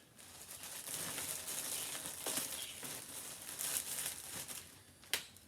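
Plastic packaging and clothing crinkling and rustling as packaged garments are handled, with one sharp click near the end.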